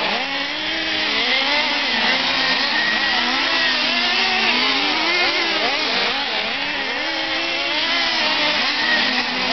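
Several nitro-engined RC trucks running at once, their small two-stroke glow engines buzzing at high revs, each pitch rising and falling as the trucks accelerate and ease off, the tones crossing over one another.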